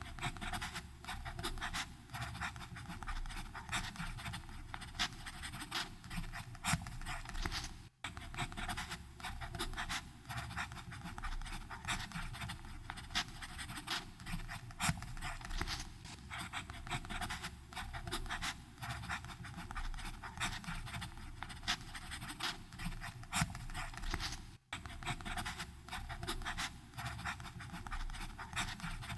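Fountain pen nib scratching across paper in a continuous run of short writing strokes. Two momentary dropouts break it, about 8 seconds in and near 25 seconds.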